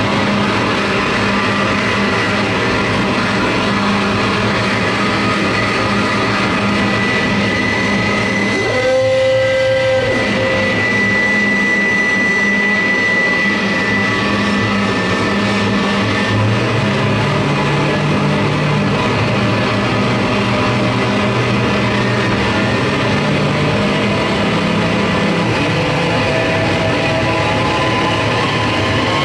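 Live noise music: a loud, dense wall of electronic noise with held droning tones. About nine seconds in, the noise briefly thins to a single held tone, and a lower drone comes in about halfway through.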